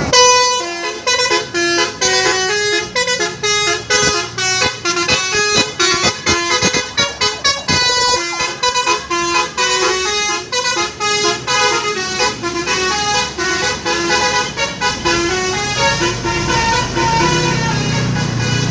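Bus telolet horn, a multi-tone melodic air horn, playing a fast tune of short stepped notes, several a second, for about fifteen seconds. A low engine drone grows louder beneath it near the end.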